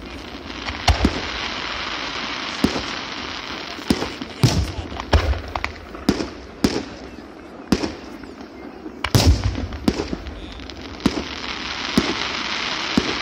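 New Year's fireworks going off: a dozen or more sharp bangs of bursting shells at irregular intervals, some close together, over a steady hiss between them.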